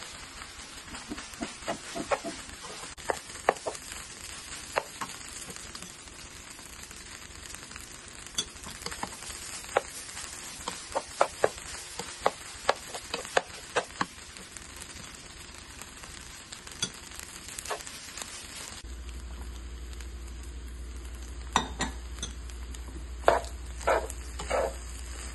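Fried rice sizzling in a skillet while a metal spatula stirs and tosses it: a steady frying hiss broken by irregular scrapes and clicks of the spatula against the pan. A low steady hum comes in about three-quarters of the way through.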